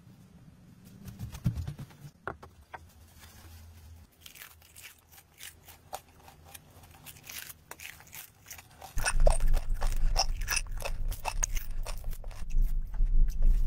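Crisp crunching and cracking of a small piece of roasted food held in split bamboo tongs, as many sharp separate cracks. About nine seconds in, a steady low rumble starts and stays louder than the crunching.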